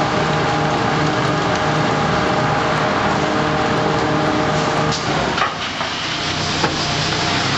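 Rotopress garbage truck running its rotating drum compactor: a steady mechanical hum from the truck's drive as the drum turns and draws refuse in. About five seconds in the steady hum drops away, leaving a rougher rumble with a few knocks.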